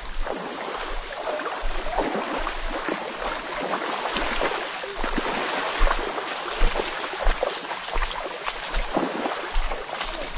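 Water sloshing and lapping with small irregular splashes, under a steady high hiss.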